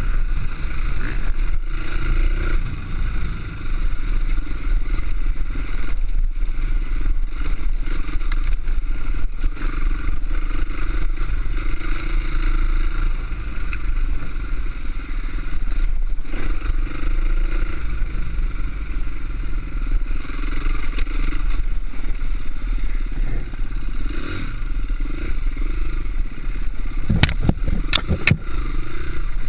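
Dirt-bike engine running steadily under way, with wind buffeting the microphone. A few sharp knocks come near the end.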